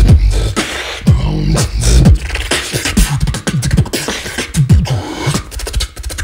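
Solo vocal beatboxing: deep bass kick sounds that drop in pitch, punctuated by sharp snare and hi-hat clicks in a busy rhythm. Near the end it breaks into a fast run of clicks.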